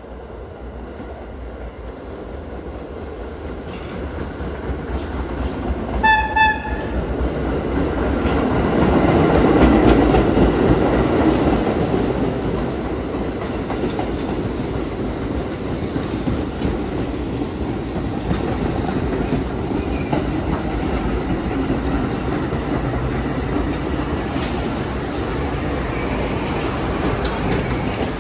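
R32 subway train approaching, growing steadily louder, and giving one short horn blast about six seconds in. It then rolls past close by with a continuous steady train noise.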